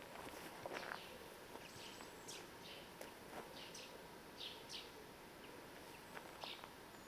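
Faint chirping of small birds: short, high calls repeated irregularly, with a few soft clicks in between.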